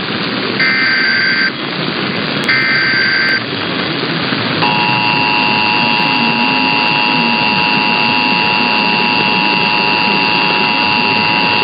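Emergency Alert System SAME header data bursts: two short, raspy two-tone digital bursts about a second apart, the last repeats of the header. About four and a half seconds in, the steady two-tone EAS attention signal (853 and 960 Hz) starts and holds. Both are received over AM radio with a constant static hiss.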